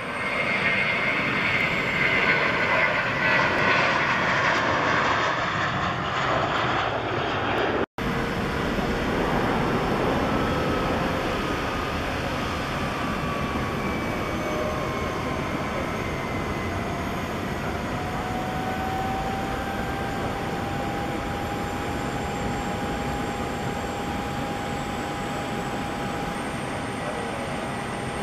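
Boeing E-4B's four General Electric CF6 turbofan engines running at taxi power: a steady jet rumble and hiss with whining tones that slowly shift in pitch. The sound breaks off for an instant about eight seconds in.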